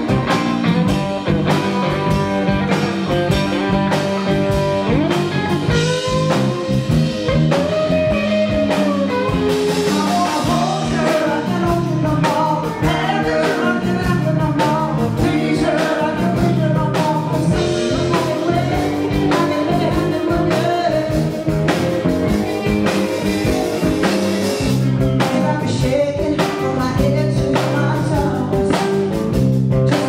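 A rock band playing live: electric guitar, electric bass and drums, with a voice singing.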